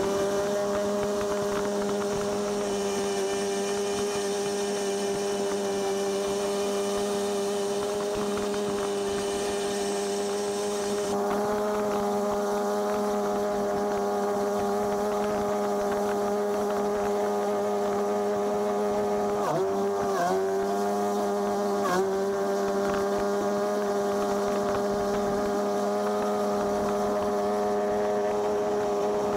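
RC model boat with an OS nitro engine and four 90 mm ducted fans, running at a steady pitch. A high whine cuts off about 11 seconds in, and the motor note dips briefly twice, a little past the middle.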